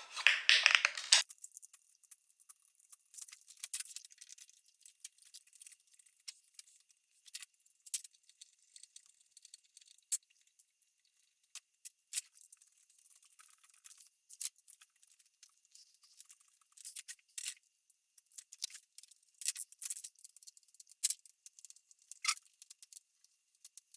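Intermittent light clicks and clinks of a screwdriver and small metal parts being handled while a failed septic aerator air pump is taken apart, with a short louder scrape at the start.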